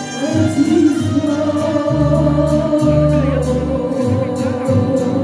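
Singing over music with a bass line and a steady beat. The voice holds one long note for about three seconds, then steps down in pitch.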